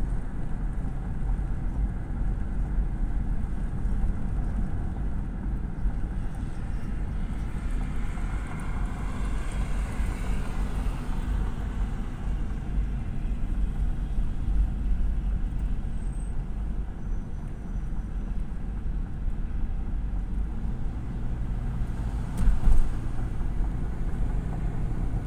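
Steady road and engine noise of a car cruising on a highway, heard from inside the cabin, with a brief louder thump near the end.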